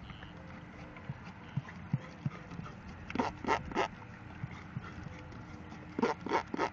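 A horse making noises with its mouth and lips: three short popping smacks about a third of a second apart, then another quick run of pops near the end.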